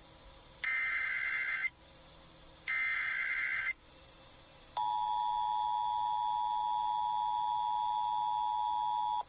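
Emergency Alert System activation on FM radio: two short bursts of warbling digital SAME header tones about a second apart, then the steady, shrill two-tone EAS attention signal held for about four and a half seconds. It signals the start of an emergency alert, here a tornado warning.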